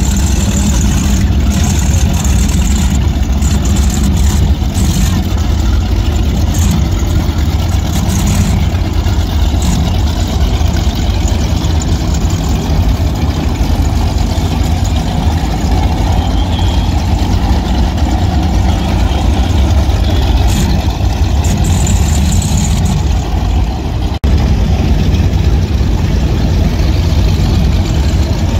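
Offshore performance powerboat engines idling as the boats cruise slowly past, a deep, steady rumble. A brief drop in loudness comes near the end.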